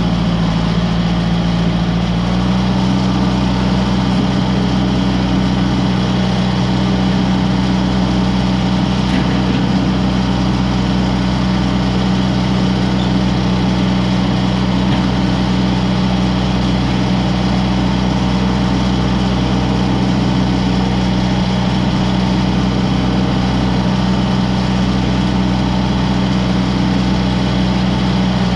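Kubota M6060 tractor's diesel engine running steadily at working speed, heard close from on board the tractor; its pitch steps up slightly about two seconds in.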